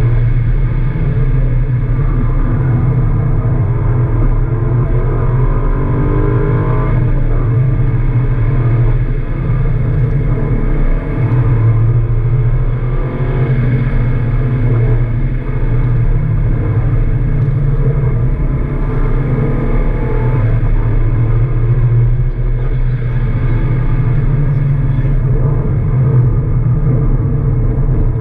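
Subaru Impreza WRX's turbocharged flat-four engine heard from inside the cabin while being driven hard on track, its note rising and falling as the car accelerates and slows through the corners, over a constant road and drivetrain drone.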